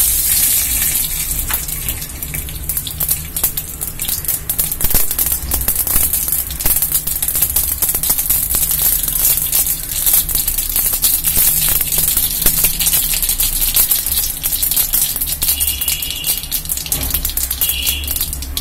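Mustard seeds spluttering in hot oil in an iron kadai: a steady sizzle studded with many sharp pops, the tempering (tadka) stage of cooking.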